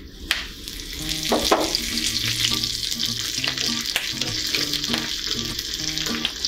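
Curry leaves and a dried red chilli hitting hot coconut oil with mustard seeds and urad dal in a small tempering pan, sizzling hard from a moment in as a steel ladle stirs them.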